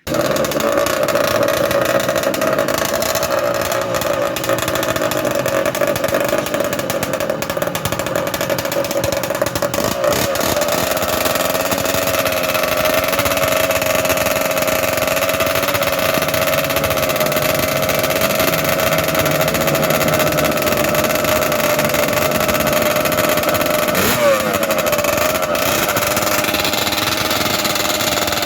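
Small motorcycle engine running hard at high, fairly steady revs, with a brief dip and recovery in pitch late on.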